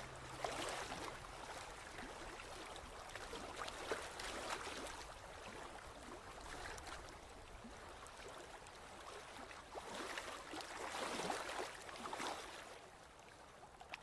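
Sea water washing and splashing in slow, uneven surges of noise, swelling strongest a little past the middle and fading near the end.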